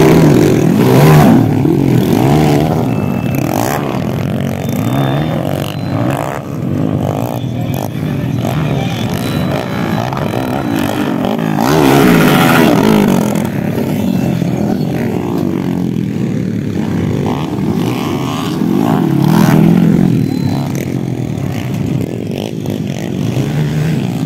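Several underbone motocross motorcycles racing, their engines revving up and down over one another as they pass and take the jumps. The engines are loudest about halfway through and again near the end.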